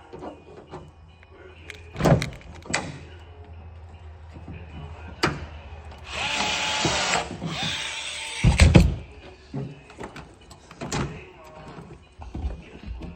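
Power drill running in two short bursts, a motor whine over a hiss, as holes are drilled through the race car's sheet-metal quarter panel. Scattered knocks surround the drilling, and a heavy clunk follows just after the second burst.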